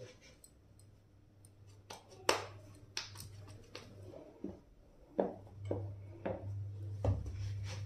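Scattered light taps and clinks of steel kitchen utensils and a stuffed dough ball being handled on a counter, about seven sharp knocks spread irregularly, over a low hum.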